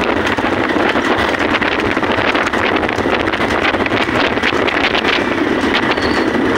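Wind buffeting the microphone of a phone filming from a moving motorcycle, over the motorcycle's running engine, with many small knocks and clatters throughout.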